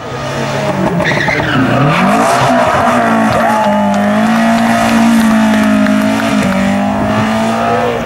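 Rally car engine at high revs passing close. About a second in the revs drop and then climb sharply as it accelerates out of the corner. It holds high revs, with a brief dip near six and a half seconds.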